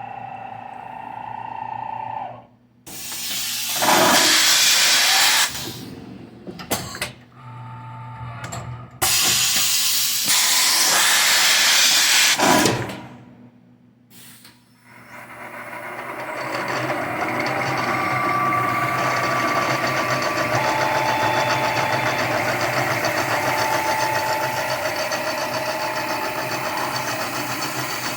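A 1980 Shizuoka AN-S CNC milling machine at work. It gives two loud hissing bursts of a few seconds each, with quiet gaps between them, then from about halfway in it runs steadily with a few thin whining tones over the noise.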